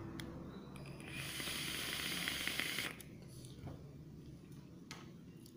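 A dripping atomizer with an Alien Clapton coil, fired at about 45 watts on a Voopoo box mod, hissing for about two seconds as a puff is taken, with a faint crackle of e-liquid on the coil. A few faint clicks follow.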